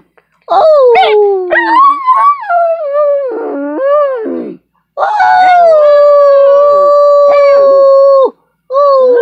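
A dog howling: a run of wavering howls that rise and fall in pitch, then one long steady howl of about three seconds, and a shorter falling howl near the end.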